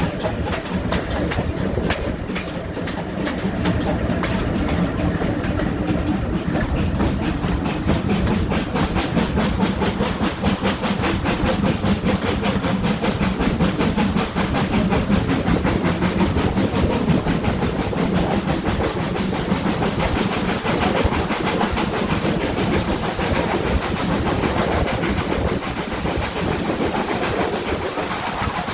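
Train running on the rails, its wheels giving a steady, dense clatter over a low rumble.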